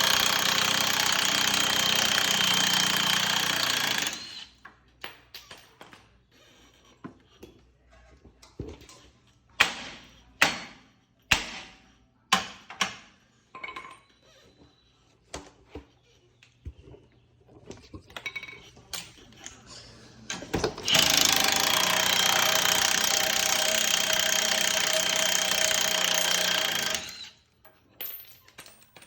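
Impact wrench hammering in two long runs, one of about four seconds at the start and one of about six seconds later on, working suspension bolts loose. Between the runs come scattered clanks and knocks of tools and parts.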